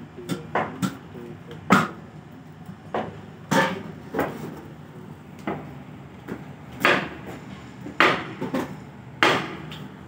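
Brass test sieves being knocked and tapped by hand: a string of irregular sharp metal knocks, a dozen or more, spaced roughly half a second to a second apart.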